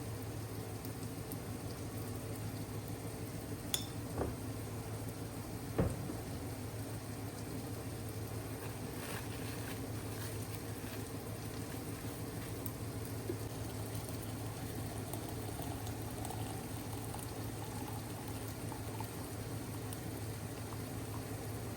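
Water heating to a boil, a steady bubbling hiss and rumble, with two sharp clicks about four and six seconds in.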